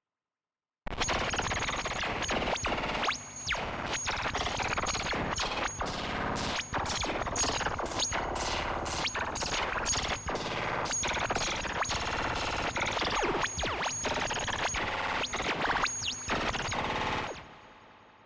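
AIR Vacuum Pro software synthesizer playing a noisy, effects-style patch: a dense rush of noise broken by rapid stutters and dropouts, with a thin high whistle coming and going. It starts suddenly about a second in and dies away with a short tail near the end.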